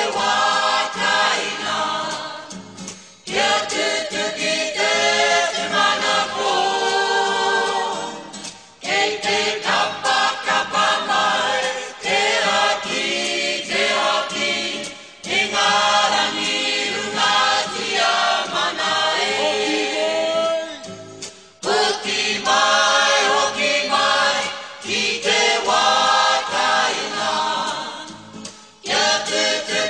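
Background music of a choir singing, in phrases a few seconds long with short breaks between them.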